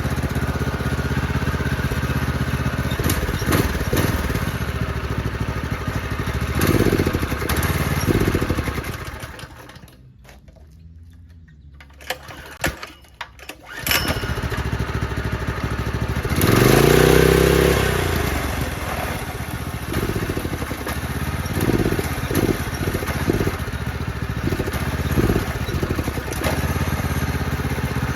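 Predator 212 Hemi single-cylinder four-stroke engine on a mini bike running with repeated throttle blips that rise and fall in pitch. About ten seconds in the engine stops, a few sharp pulls follow, and it fires again about fourteen seconds in and keeps running with more revving.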